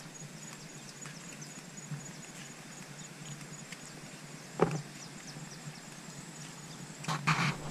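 Sparse footsteps of sandals on a dirt garden path, with one louder knock about four and a half seconds in, over a faint high chirp repeating steadily; a rustle near the end.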